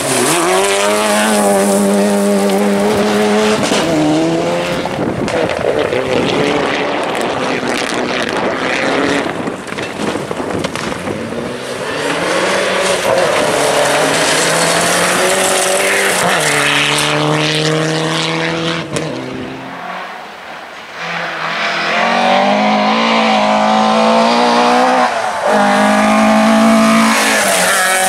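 Rally cars at racing speed, their engines revving hard and shifting through the gears, so the pitch climbs and then drops at each change, over tyre and road noise. The sound dips briefly about twenty seconds in, then comes back loud.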